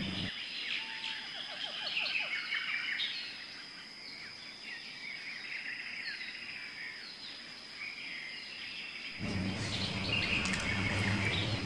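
Small birds chirping in quick, scattered calls over a steady high-pitched hiss-like tone, with a low hum joining about nine seconds in.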